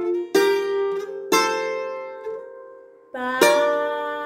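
Bouzouki plucked with a pick, playing a short answering phrase: three struck notes, each left to ring and fade, the last coming after a longer pause near the end.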